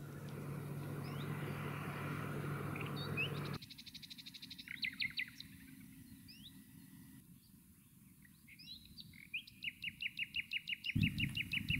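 A motorboat engine's steady low hum, which stops abruptly about three and a half seconds in and gives way to songbirds chirping and singing. Near the end a bird repeats one note in a quick, even run.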